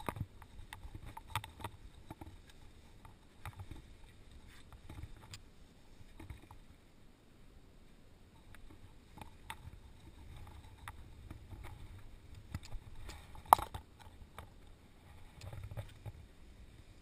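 Scattered scuffs and clicks of climbing shoes and rope gear against a sandstone wall during a rappel, with one sharper knock about thirteen and a half seconds in, over a low rumble.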